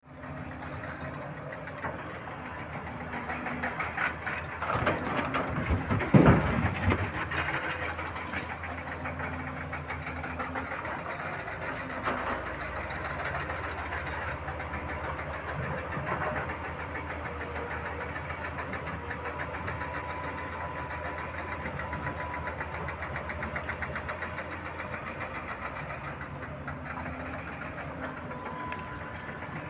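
Excavator's diesel engine running steadily, with a loud stretch of clattering impacts about four to eight seconds in as a load of rock is tipped from the bucket into a dump truck's bed. A few lighter knocks follow, and a faint steady whine comes in over the engine in the second half.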